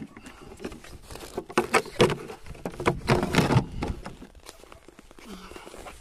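Footsteps crunching through deep snow, irregular and loudest from about one and a half to four seconds in.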